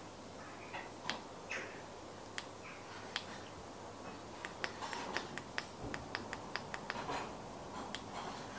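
Light, sharp clicks of an e-bike's handlebar control buttons being pressed, one after another, coming about three a second in a steadier run in the middle.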